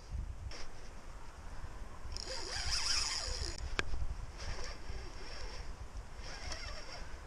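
Spinning reel buzzing in several short bursts while a hooked fish is played, the longest and loudest about two to three and a half seconds in. A single sharp click just before four seconds.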